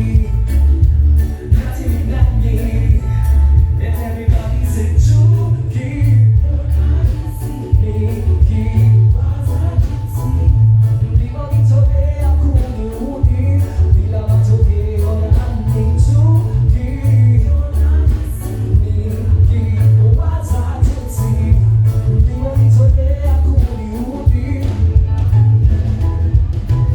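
Loud music with voices singing together over a heavy, pulsing bass.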